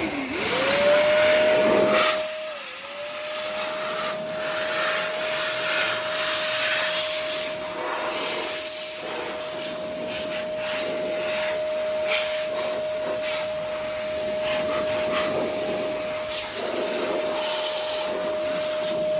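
Handheld electric dust-cleaning tool with a small high-speed motor, blowing dust out of a PC: the motor spins up to a steady high whine over loud rushing air, dips once briefly a few seconds in, and winds down at the end. Scattered short ticks sound through the air noise.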